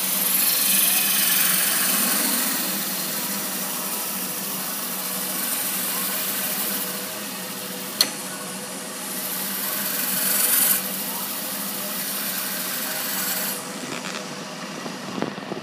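Wood lathe running with a gouge cutting the thin wall of a spinning wooden goblet: a steady motor hum under a hissing cut that swells several times as the tool takes passes. A single sharp click comes about halfway through, and the cutting hiss drops away near the end.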